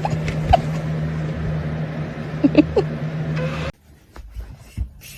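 A steady machine hum with a constant low drone and a noisy haze, cutting off abruptly about three and a half seconds in. Faint scattered clicks and taps follow.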